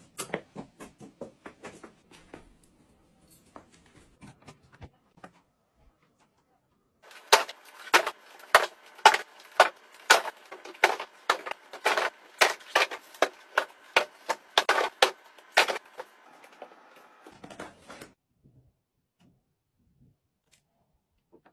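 A run of sharp clicks and knocks from objects being handled. A louder, regular stretch of about two to three knocks a second runs through the middle, then the sound fades and stops.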